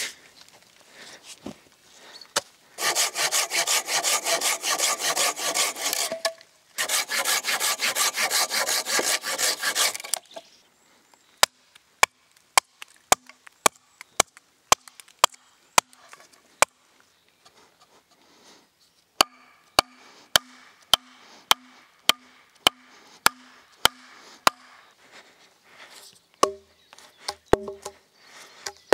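Hand saw cutting through wood in two runs of quick back-and-forth strokes, each about three seconds long, then a hatchet chopping wood with sharp single strikes about two a second for the rest of the time.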